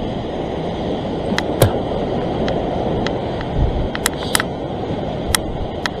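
Ocean surf breaking and washing over rock ledges, a steady rushing noise, with a few sharp clicks scattered through.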